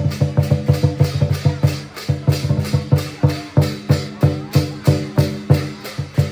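Lion dance percussion: a large drum beaten with cymbals clashing, in a fast, even beat of about five or six strokes a second.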